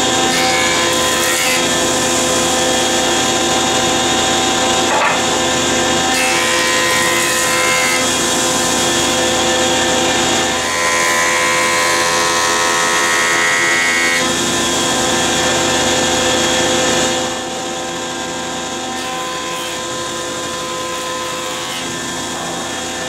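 Jointer running with its cutterhead planing the face of a sipo mahogany board as it is pushed across: a steady machine whine with the hiss of cutting, a higher-pitched whine about halfway through, and a drop to a quieter level about three-quarters of the way in.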